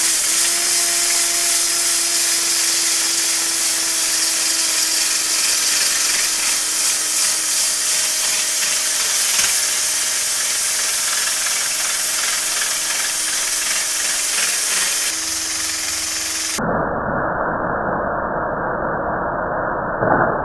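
An electric power tool running steadily with a constant whine and a loud hiss. About 16 seconds in, the sound switches abruptly to a duller, muffled running noise with the high hiss gone.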